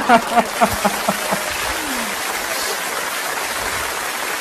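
A man laughing in a quick run of short 'ha-ha' laughs at the start, over a steady wash of audience applause and laughter from a cabaret stage recording that carries on throughout.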